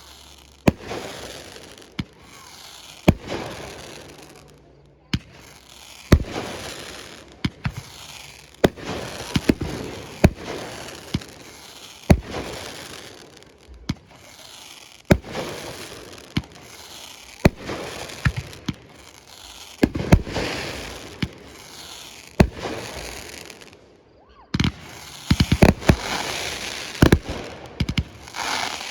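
Fireworks display: a steady run of aerial shell bursts, sharp bangs every second or two, each trailed by crackling and hissing, with a denser flurry of crackling bursts near the end.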